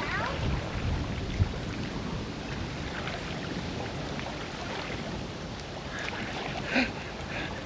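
Steady rushing noise of wind buffeting the microphone, gusting with a low rumble in the first second or so, and a brief faint cry near the end.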